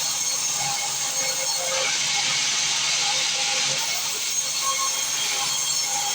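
Sawmill machinery running: a steady, even hiss with no distinct cuts or knocks.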